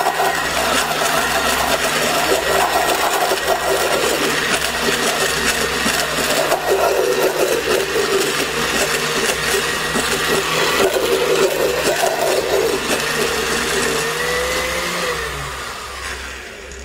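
Electric countertop blender running, grinding cooked chickpeas and onion into a thick dough, with more chickpeas dropped in through the lid hole as it runs. Its motor pitch wavers up and down, and it winds down near the end.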